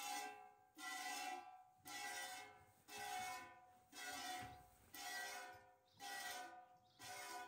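Milk squirting from a cow's teat into a stainless steel pail during hand milking, about one squirt a second. Each squirt is a short hiss that sets the metal pail ringing with a few clear tones that fade before the next.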